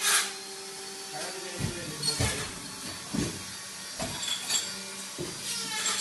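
Steady low electric hum from a powered-on RJ45 crimping machine standing idle, under scattered light clicks and knocks as clear plastic RJ45 plugs and cable ends are handled.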